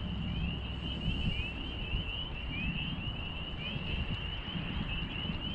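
A steady chorus of frogs peeping at the pond, many short rising peeps overlapping several times a second, over a low rumble.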